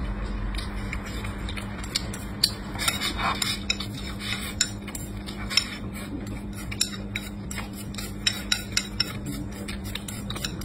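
Chopsticks tapping and scraping against a bowl as rice is scooped up, in irregular sharp clicks, with mouth sounds of chewing and eating.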